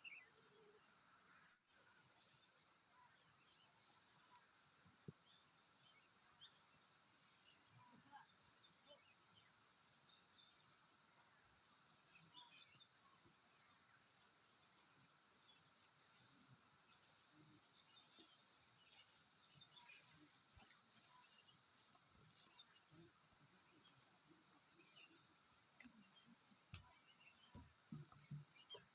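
Faint, steady high-pitched insect chorus trilling without a break, setting in about a second and a half in, with a few scattered small ticks and knocks.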